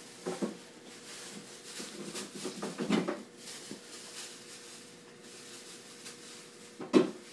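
A freshly bathed small dog rolling and rubbing itself along a carpet: rustling and scuffing of fur and paws on the pile, with a few thumps, the loudest one near the end.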